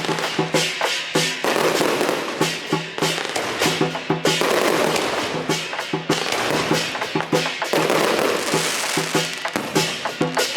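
Firecrackers going off in rapid, irregular cracks, with music playing under them.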